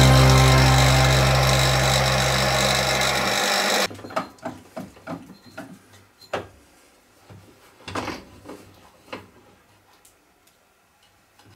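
Bench drill press motor running steadily, cutting off abruptly about four seconds in. Then a series of light clicks and knocks as the drill-press vise and chuck are handled, thinning out to near quiet.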